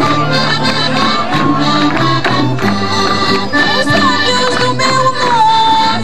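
Portuguese traditional folk music, accordion-led, played for a rancho folclórico dance.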